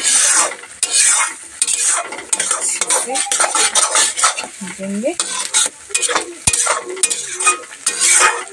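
Flat metal spatula scraping and stirring masala paste as it fries in an aluminium kadhai, in repeated strokes over a steady sizzle. This is the bhuna stage, where the spice paste is fried until cooked before water is added.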